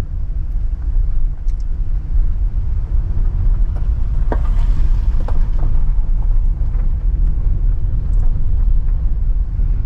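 Car driving over a rough, damaged road: a steady low rumble of tyres and running gear, with a few short knocks or rattles about halfway through.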